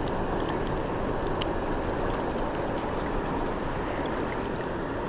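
Steady rush of flowing river water, with a few faint small ticks.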